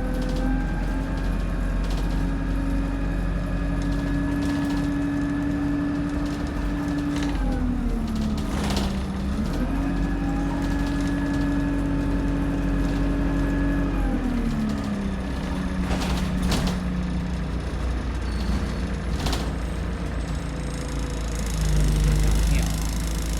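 Alexander Dennis Enviro200 bus engine and transmission running while under way, with a steady whine. The whine drops in pitch twice as the bus slows and rises again as it pulls away. Sharp clicks and rattles come from the bodywork along the way.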